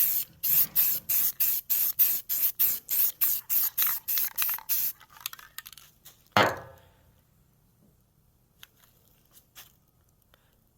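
Aerosol spray-paint can sprayed in rapid short bursts, about four a second, for some five seconds. This is followed by one sharp knock about six seconds in.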